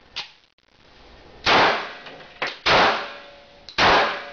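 Three gunshots fired at a concealable bulletproof vest, about a second apart, each sharp crack trailing off over about half a second.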